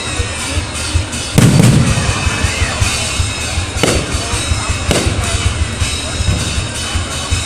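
Aerial fireworks bursting over continuous crackling, with a loud bang and deep boom about a second and a half in and a couple of smaller bangs a few seconds later. Music plays along.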